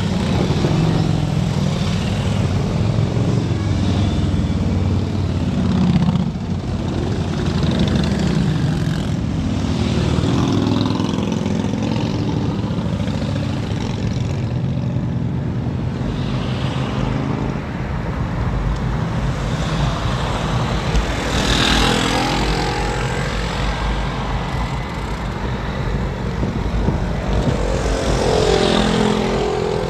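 Motorcycle engines and road traffic running at low speed close by, over a steady low rumble of wind on the microphone, with shifting engine pitch; one vehicle gets louder about two-thirds of the way through.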